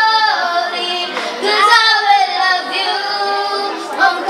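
A young girl singing into a handheld microphone, holding long notes that slide up and down in pitch.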